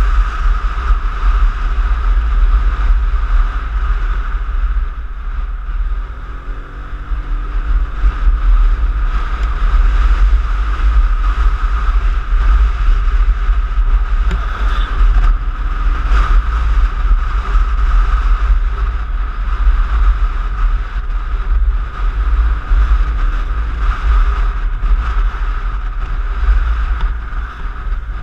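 Heavy wind rumble on the action-camera microphone while riding a Piaggio X9 maxi-scooter, with the scooter's engine note underneath. About six seconds in the rumble eases briefly, then the engine pitch climbs as the scooter pulls away again; a smaller rise comes near the end.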